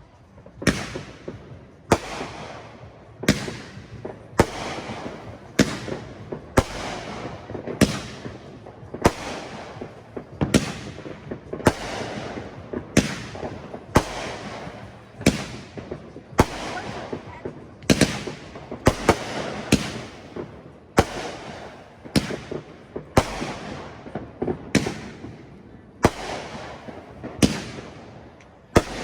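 Fireworks going off in quick succession, a sharp bang about once a second, each followed by echoing crackle.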